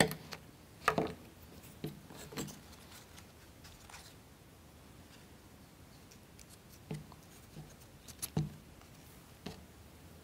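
Light clicks and taps of plywood model parts being handled as toothpicks are pushed in to pin a part in place, a few scattered sharp ticks with quiet between them.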